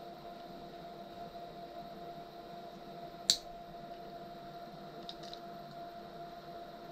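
Steady electrical hum of the powered stepper-motor CNC rig and its drivers. One sharp click about three seconds in, then a couple of faint ticks a couple of seconds later.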